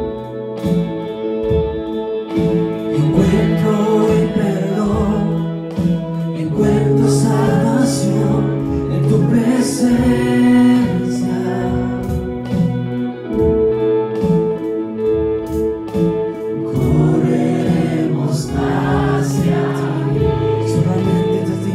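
Live Christian worship music: a band holding slow sustained chords with voices singing over it in a few phrases.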